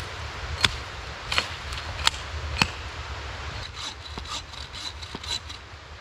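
Axe chopping into the trunk of a fallen conifer: four sharp strikes about two-thirds of a second apart, then lighter clicks and rustling as the branches are handled.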